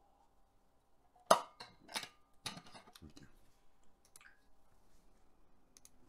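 Several sharp clinks and knocks of a drinking glass being handled, the loudest just over a second in, followed by a few fainter clicks.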